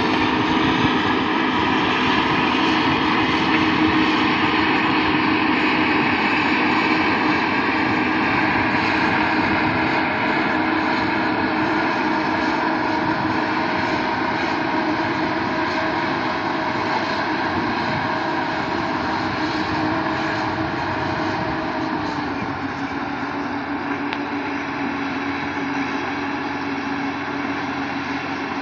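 Komatsu PC200 hydraulic excavator's diesel engine running steadily as the machine digs, with its pitch drifting slightly and easing a little near the end.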